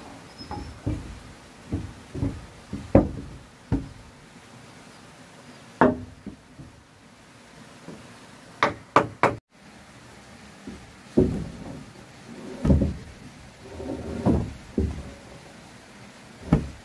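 Heavy wooden floor planks knocking and thudding against each other and the floor frame as they are shifted and set into place, in irregular knocks. Three sharp knocks come in quick succession about halfway through.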